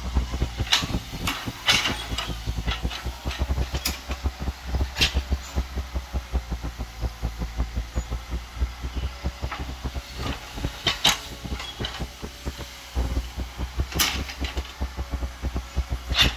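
Diesel engine of an old Caterpillar tracked hydraulic excavator running with a steady throb while it digs soil, with a short sharp noise now and then, about eight in all, as the bucket and arm work.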